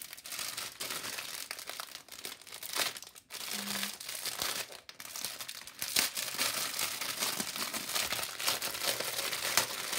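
Clear plastic packaging full of small bags of diamond-painting drills being handled and crinkled: a continuous irregular crackle of plastic, busier and louder in the second half.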